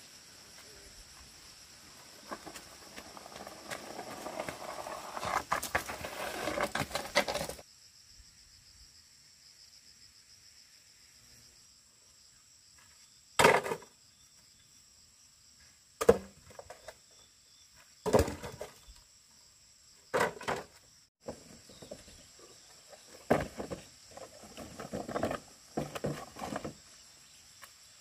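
Insects droning steadily in the background. Over it, rustling and handling noises stop abruptly about seven and a half seconds in, followed by about five separate sharp knocks a few seconds apart and a burst of further knocking and rustling near the end.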